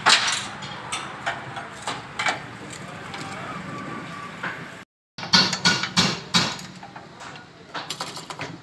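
Scattered clicks and knocks of hands working on a motorcycle, broken by a brief dropout about five seconds in. After the break comes the handling of a foam air filter being squeezed in a metal bowl of petrol.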